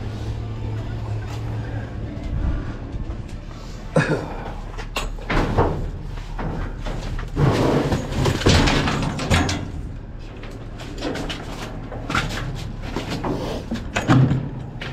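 Clunks, knocks and scraping as salvaged items are handled and moved, with a sharp knock about four seconds in, a longer clattering, scraping stretch in the middle and another knock near the end, over a steady low hum.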